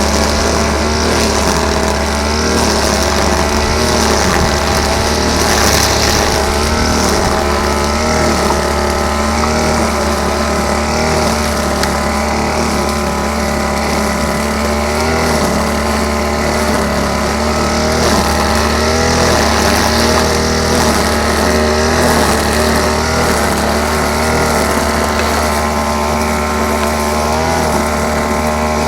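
Grass-cutting machine's small engine running steadily at working speed, its pitch wavering slightly as the load changes.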